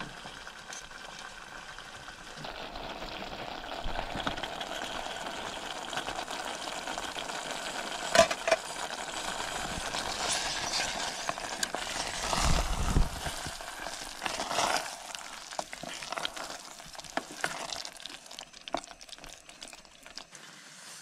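Masala gravy frying in a pan with a steady sizzle while a spoon stirs it. Metal clinks of the spoon on the pan come through, sharpest about eight seconds in. The sizzle builds a couple of seconds in, is strongest around the middle with a dull thump, and fades over the last few seconds.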